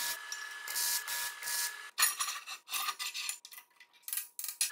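MIG welding on steel square tubing: short bursts of crackling arc noise with gaps between them, in the manner of tack welds. Near the end come a few short sharp sounds.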